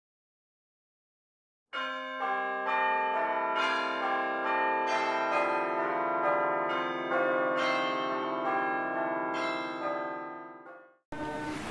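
Bells chiming a slow melody, about two strikes a second, each note ringing on under the next. The bells start suddenly about two seconds in and fade out near the end, and choir singing cuts in just before the end.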